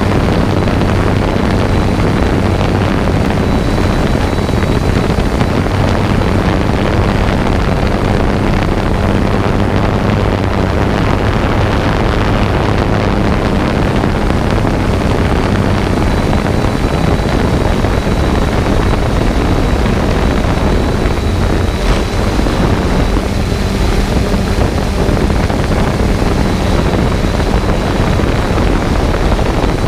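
Steady whir of a quadcopter drone's motors and propellers, with wind rushing over the microphone.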